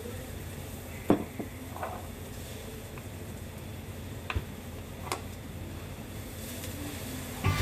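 Steady low hum of restaurant room tone, broken by a few short sharp clicks and clinks of tableware, the loudest about a second in.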